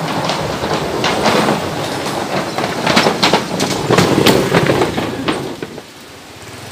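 A motorbike crossing an old, rusty suspension bridge, its deck rattling and clattering under the wheels. The clatter builds to its loudest as the bike passes close by, about three to four seconds in, then fades away.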